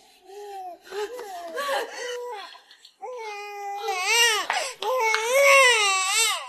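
Newborn baby crying: short, fairly quiet cries with pauses at first, then louder, longer wavering wails from about three seconds in.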